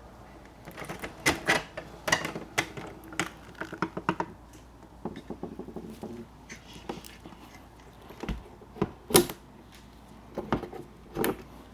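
Irregular clicks, rattles and knocks of hard window parts being handled, with one sharper knock near the end.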